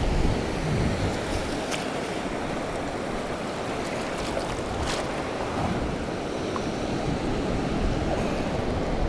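Shallow ocean surf washing and swirling around a long-handled sand scoop as it digs into the water, with a couple of faint clicks, one about two seconds in and one about halfway.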